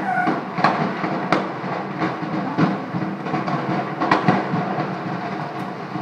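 A large petrol station fire burning: a steady roar crossed by sharp crackles and pops about once a second.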